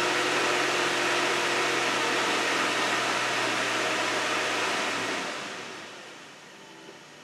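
Jeep Grand Cherokee 4.7-litre V8 held at a steady 2,000 rpm. About five seconds in the throttle is let off, and the revs fall back toward 1,000 and the engine gets much quieter. This is part of a random stalling fault that the owner blames on a failing PCM.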